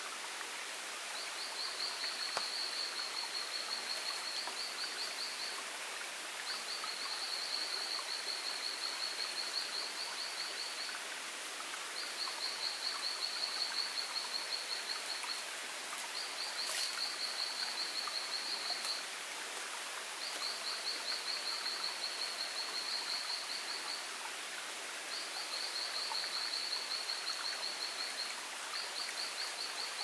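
Tropical forest ambience: a steady background hiss with a high, rapidly pulsing animal call repeated in runs of two to four seconds with short gaps between. A single sharp click about seventeen seconds in.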